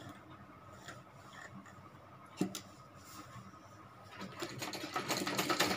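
Quiet fabric handling with a single sharp knock about midway, then a sewing machine starts stitching about four seconds in, a rapid even run of needle strokes that grows louder, sewing down a folded waistband.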